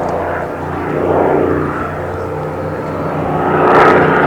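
Rolls-Royce Merlin V12 engine of a Second World War fighter flying overhead. The engine sound swells about a second in and grows louder again near the end as the plane passes.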